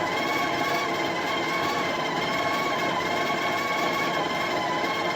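The Breville Barista Touch Impress's built-in conical burr grinder running, grinding coffee beans into the portafilter: a steady motor whine that wavers slightly in pitch.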